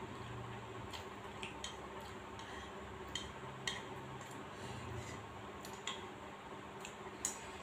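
Chopsticks clicking against a ceramic bowl while eating noodles: about seven light, irregular clicks over a steady low hum.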